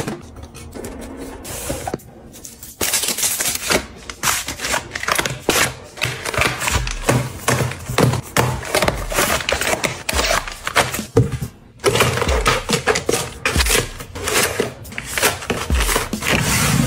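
Close-up handling of packaging: plastic snack bags and foil sheet-mask sachets crinkling and rustling, with quick taps and knocks of cardboard boxes and plastic bins being set down and shuffled.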